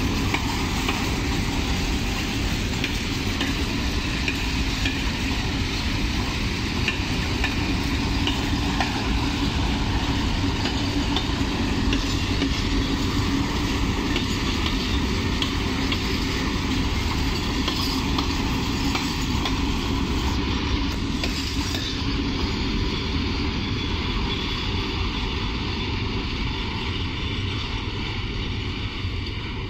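Freight train of open wagons rolling past: a steady rumble and rattle of wagon wheels on the rails, easing slightly near the end as the train draws away.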